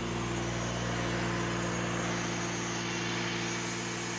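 Diesel engine of a skid-mounted air compressor running steadily and evenly, freshly serviced with new oil and a new filter.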